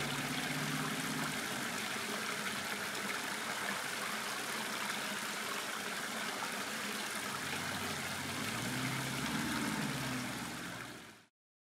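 Steady rush of creek water, with a low hum at the start and again near the end. The sound fades out just before the end.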